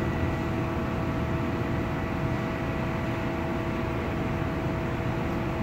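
Steady mechanical drone: a noisy hum with a few fixed tones held through it, unchanging throughout.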